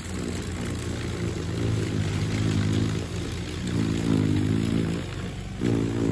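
Snowblowers running through snow: a steady motor drone whose pitch wavers slightly, dipping briefly about five and a half seconds in.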